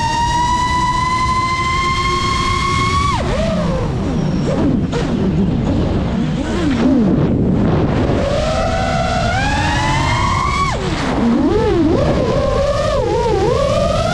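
FPV drone's brushless motors and propellers whining, the pitch following the throttle. It climbs steadily, drops sharply about three seconds in, wavers low and unsteady for several seconds, climbs again, drops once more near the end and then climbs back up, over a constant rush of air.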